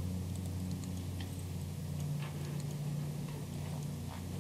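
Steady low room hum with a few faint, irregular ticks and clicks.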